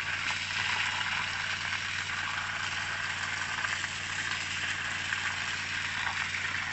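A sandy tin-mine tailing slurry pours steadily from a discharge pipe and splashes onto wet sand: an even rushing hiss, with the steady hum of a pump engine beneath it. This is tailing sand being pumped back to fill a worked-out pit.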